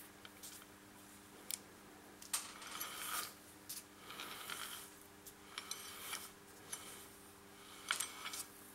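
Turn-indicator switch lever on a Triumph Roadster steering wheel being worked back and forth by hand, giving irregular metallic clicks and short scraping rattles as it moves between positions. A faint steady hum underneath.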